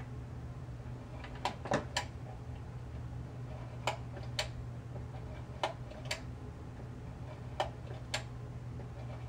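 View-Master reel projector running with a steady low fan hum while its advance lever is worked, giving pairs of sharp clicks about every two seconds as the reel steps to the next picture.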